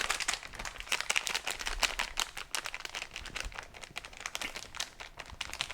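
Cut-open packet of plaster powder crinkling and crackling as it is tipped and squeezed to empty the powder into water.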